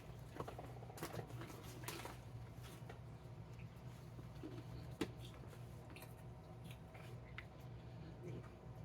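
Faint scattered crunches and small clicks of people eating crunchy rice chips and handling the snack, over a low steady room hum.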